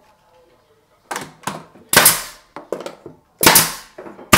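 Pneumatic nail gun firing nails through window casing trim into the framing: a quick series of sharp shots starting about a second in, three of them much louder than the rest.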